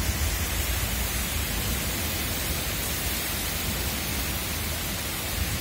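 Heavy wind-driven rain pouring down in a thunderstorm: a steady rushing hiss with a low rumble of wind underneath.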